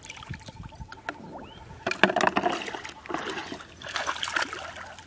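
Shallow water splashing and sloshing as people wade and handle floating plastic-bottle traps: irregular small splashes and trickles, quieter at first and busier from about two seconds in.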